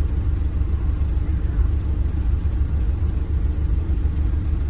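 A bus's engine idling with a steady low rumble, heard from inside the passenger cabin while the bus stands still.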